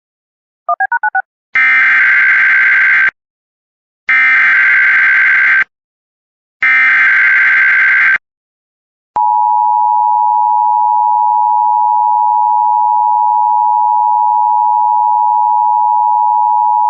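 Emergency Alert System broadcast: a quick chirp, then three identical buzzy bursts of SAME header data about a second apart, then the steady two-tone EAS attention signal, held for about eight seconds and cut off near the end. It opens a relayed National Weather Service severe thunderstorm warning.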